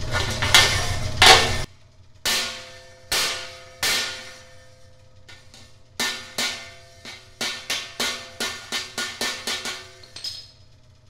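Sharp metallic clanks, each with a short ring, from a crescent wrench working the bent outer rim of a vintage neon clock's sheet-metal back can. A few strikes spaced about a second apart, then a quicker run of about a dozen, after a couple of loud handling rustles at the start.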